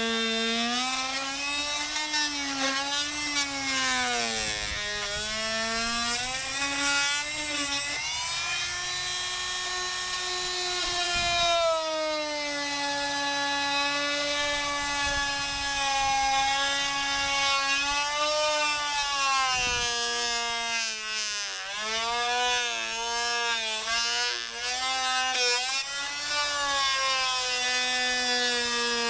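Electric drill boring through the house wall with a large bit, its motor whine running continuously and sagging in pitch as the bit loads up, then recovering.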